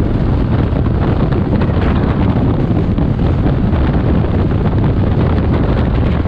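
Steady, heavy wind buffeting on the microphone of a moving scooter, with road and engine noise beneath it and no clear engine note.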